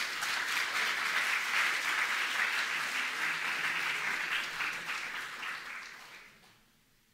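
Audience applauding, a dense patter of many hands clapping that holds for about four seconds and then dies away.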